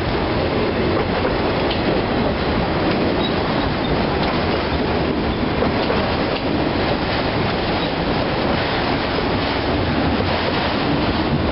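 Freight train of autorack cars rolling steadily past a grade crossing: a continuous rumble and rattle of steel wheels on rail and car bodies.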